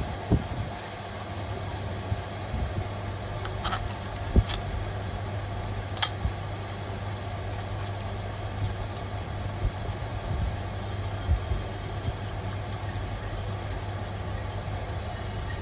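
Steady low electrical hum under a noisy background, with scattered short clicks and knocks.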